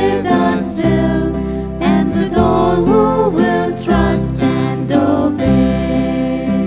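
Hymn music: a sung melody with vibrato over steady instrumental accompaniment.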